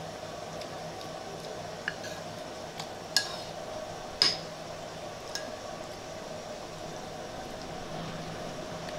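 Metal spoons clinking against soup and glass bowls a few times, the loudest about four seconds in, over the steady hum of a running washing machine.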